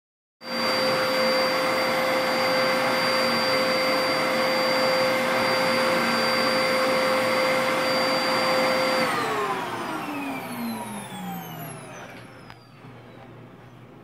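Dyson upright vacuum cleaner running with a steady whine. About nine seconds in its motor winds down, the pitch falling and fading over a few seconds as it is switched off.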